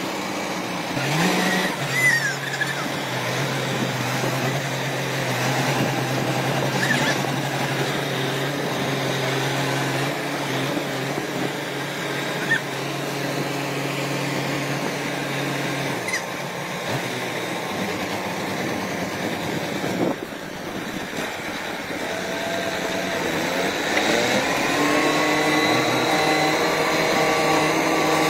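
Diesel farm tractor engines running, with the pulling tractor revving up under load about three-quarters of the way through, its pitch and loudness rising as it drags a second tractor out of the mud.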